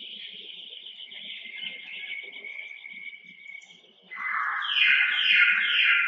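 Insects trilling steadily and high, then about four seconds in a much louder raspy buzz that swells in three pulses.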